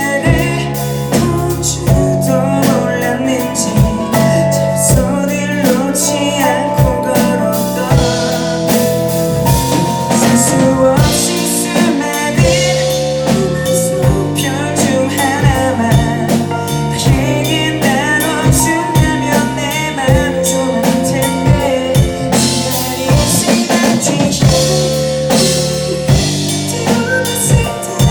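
Live pop band playing an instrumental passage: drum kit keeping a steady beat under bass and sustained chords.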